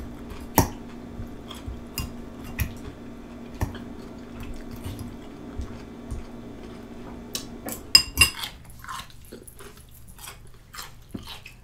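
A metal fork clinks and scrapes against a glass bowl of cucumbers in ranch dressing, in sharp separate clicks with a cluster about eight seconds in, alongside chewing. A steady low hum underneath stops about eight seconds in.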